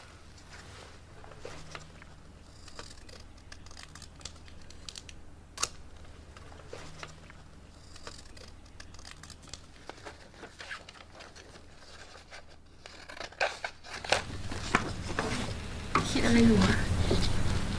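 Scissors snipping and paper rustling as strips of paper are cut, in short scattered snips.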